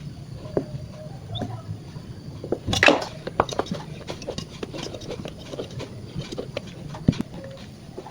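Irregular light clicks and taps from handling kitchen utensils and bowls, with one louder clatter about three seconds in.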